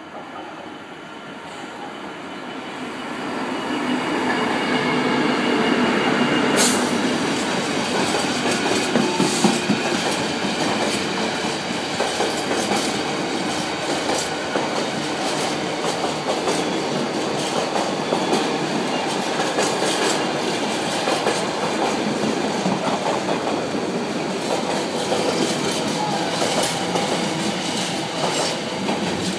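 Freightliner Class 66 diesel locomotive hauling a container train, growing louder over the first few seconds as it draws close. This gives way to the steady clatter of the container wagons' wheels over the rail joints, with repeated sharp clicks.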